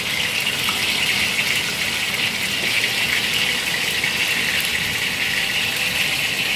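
Salmon slices frying in oil in a wok, a steady sizzle.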